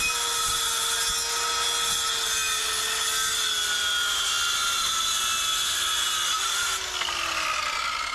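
Circular saw cutting across a 1-inch-thick cherry board, a steady whine whose pitch sinks slowly as the blade works through the wood. Near the end the cut finishes and the motor winds down.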